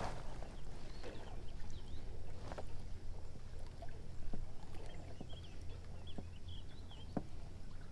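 Wind on the microphone and small waves lapping against a fishing kayak's hull, as a steady low rumble. Scattered light clicks and knocks and a few faint, short, high chirps sound over it.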